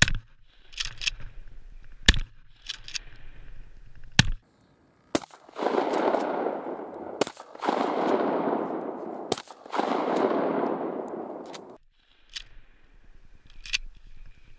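Pump-action shotgun firing three shots about two seconds apart, the pump racked between shots. After a short gap comes several seconds of a steady rushing noise, broken by sharp cracks about every two seconds.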